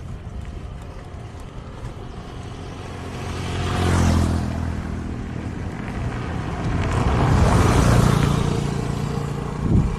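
Two motor vehicles pass close by, one after the other. The engine sound swells and fades about four seconds in, then again more broadly around eight seconds in.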